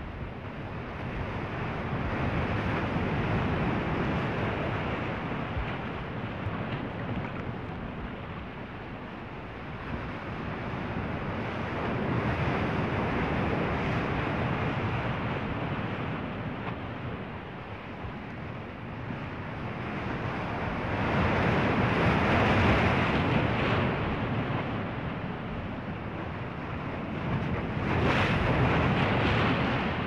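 Ocean surf: waves breaking and washing in, a rushing noise that swells and fades four times, the swells a little past twenty seconds in and near the end the loudest.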